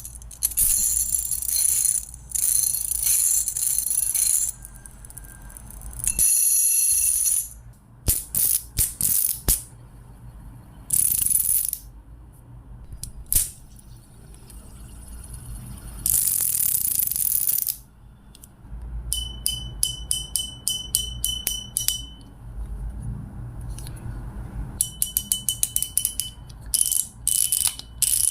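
A run of sharp mechanical clicks and ratcheting ticks, broken by short bursts of high hiss or rustle. Twice the ticks come in fast runs.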